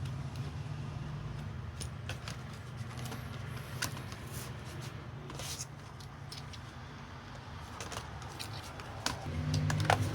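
Scattered small clicks and taps of laptop parts and screws being handled, over a low steady hum that grows louder near the end.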